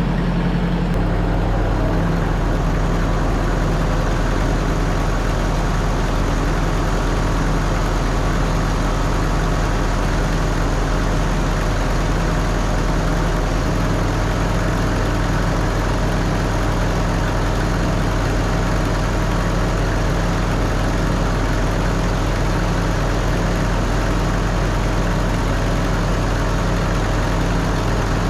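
Gobege heavy-duty 12-volt portable air compressor running steadily with an even, low drone, pumping up a large tractor front tire from about 22 psi; on this big tire it works slower than on small ones.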